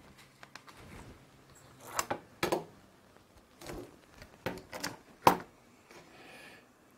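Handling noise from a carbon-fibre quadcopter frame, its motor and a hex driver knocking against a cutting mat: a string of sharp clicks and clacks, the loudest about five seconds in.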